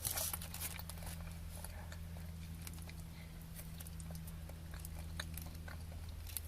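A person quietly chewing a Quality Street Strawberry Delight chocolate, with a few small clicks, over a steady low hum.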